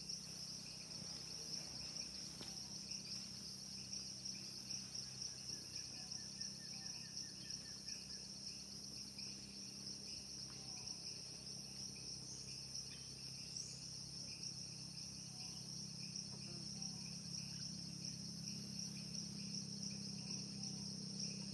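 Tropical rainforest insect chorus: a steady high buzz, with a lower chirping that pulses about twice a second, over a low steady hum.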